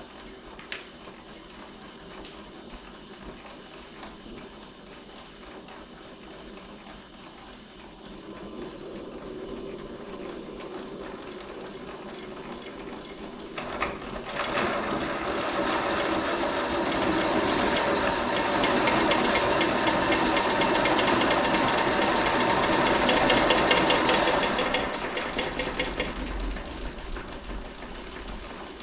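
Stuart beam model steam engine running and driving a rotary pencil sharpener: a fast, even mechanical clatter with a hiss. It starts loudly about halfway through and dies away a few seconds before the end.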